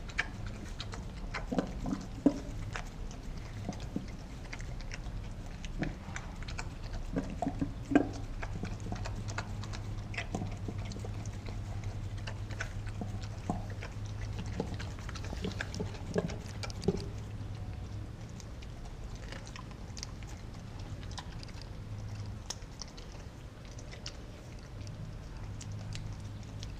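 Kelpie–German Shepherd cross dog chewing raw food from a stainless steel bowl, with scattered sharp clicks that thin out over the last third. A steady low hum runs underneath.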